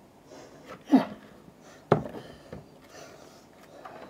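Handling noises from books and packaging: a knock with a quick falling squeak about a second in, then a sharp knock a second later and a softer one just after.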